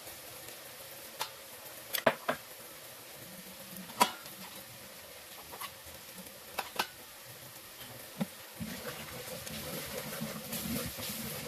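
Onions frying in oil in a pressure cooker with a soft, steady sizzle, broken by scattered sharp clicks of a steel spoon tapping against the pot and spice bowl as red chili powder goes in; the loudest tap comes about four seconds in. Near the end a wooden spatula stirs and scrapes through the onions, and the noise thickens.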